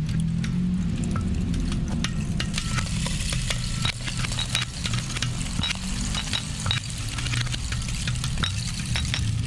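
Improvised electronic music: a low droning loop under a dense crackling texture of small clicks and tiny high pings, from percussion sounds looped and processed with granular sampling.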